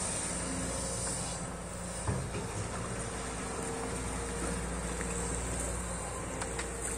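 SANY SY215C hydraulic excavator's diesel engine running steadily while the boom lowers the bucket into a muddy ditch, with a light knock about two seconds in. A steady high-pitched insect buzz sits over the engine.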